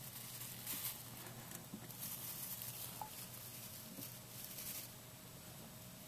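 Soft, scattered rustling and scrabbling of a Russian dwarf hamster moving about in its cage bedding, in several short bursts.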